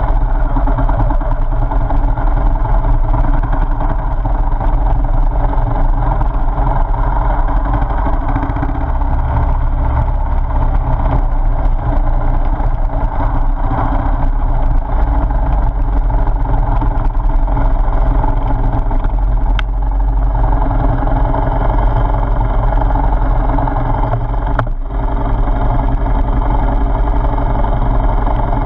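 Motorcycle engine running steadily as the bike rides along a dirt track, heard close from a camera mounted on the bike, with a brief drop in level about three-quarters of the way through.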